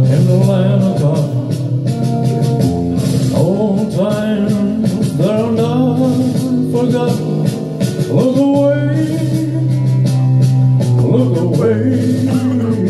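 A man sings live into a microphone over a rock-and-roll backing track played from a laptop.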